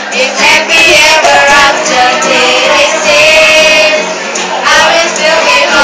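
A group of girls singing together to a strummed acoustic guitar.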